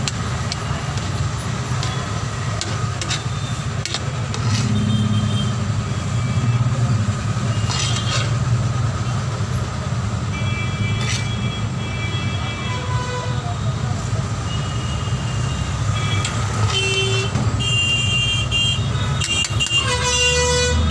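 Road traffic: a steady low engine rumble with vehicle horns tooting now and then, more often in the last few seconds.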